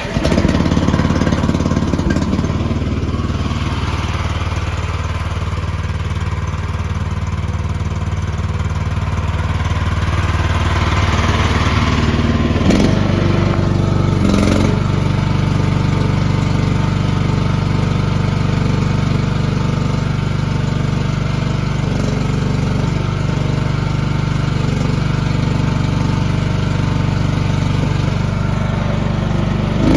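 Gas engine of a mini skid steer loader starting and running steadily. About 13 seconds in its engine speed changes, with a couple of short knocks, then it runs evenly again.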